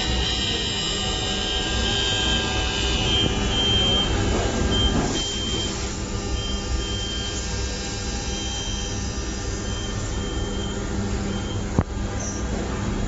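CNC machine running: a steady motor hum with a high whine that starts and stops in short dashes as the axes move, and a single sharp click near the end.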